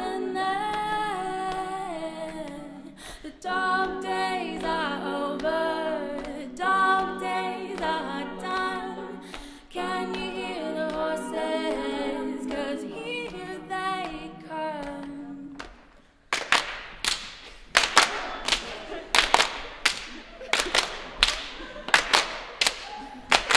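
A women's a cappella group sings sustained chords under a solo voice, with a low held bass note, in phrases a few seconds long. About sixteen seconds in the singing stops, and the group claps in a steady rhythm, one to two claps a second.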